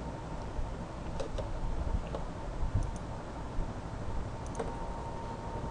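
A few faint, scattered clicks over a low, steady background hum.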